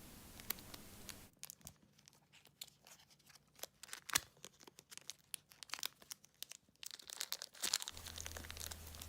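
Small plastic blind bag being torn open and crinkled by hand: faint, scattered crackles and ticks, with a few sharper ones about four seconds in and near the end.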